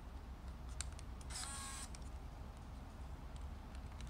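Fuji Tele Cardia Super Date 35mm point-and-shoot camera: a couple of light clicks about a second in, then the camera's small electric motor whirs for about half a second. A few faint ticks come later as it is handled.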